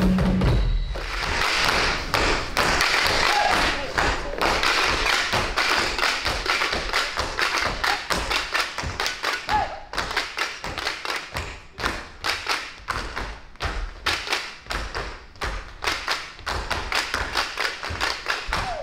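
A troupe of stage performers doing body percussion in unison: stomps, slaps and claps in a quick, even rhythm.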